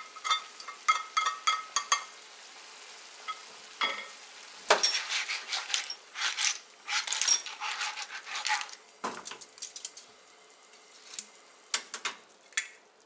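Spaghetti with clams being stirred and tossed in a metal frying pan: bursts of clinking and scraping against the pan, with a light sizzle, thinning to a few scattered clicks near the end.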